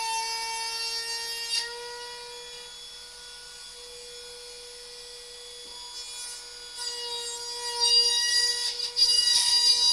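Trim router fitted with a 1/4-inch upcut spiral bit, running with a steady high whine. It drops quieter around the middle, then grows louder and rougher from about seven seconds in as the bit cuts a slot in the wooden panel.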